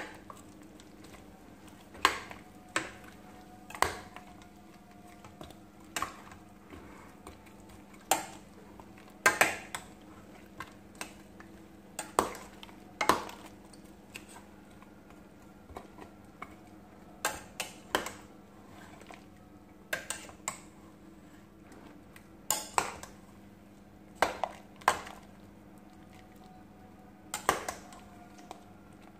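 Metal spoon knocking and clinking against a stainless steel pot while stirring chicken pieces: irregular sharp knocks every second or two, some with a short metallic ring, over a faint steady hum.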